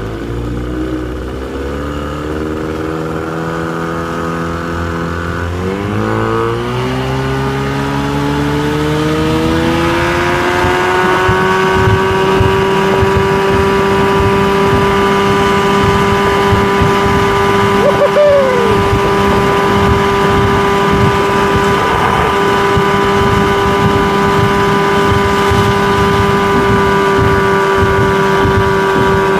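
1974 Mercury 20 hp two-stroke twin outboard motor revving up as the throttle is opened, its pitch climbing in steps over the first ten seconds or so. It then runs steadily at high revs, pushing the boat at speed.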